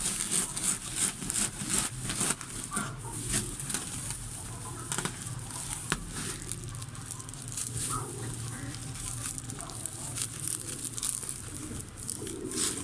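Woven plastic sack full of wheat-straw chaff rustling and crinkling as it is pushed and tipped into a bird cage, with the straw crackling.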